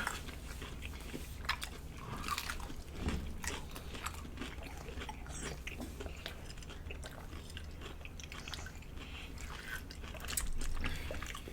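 Close-miked eating of deep-fried battered seafood: scattered crunching bites and chewing, heard as soft irregular crackles and clicks.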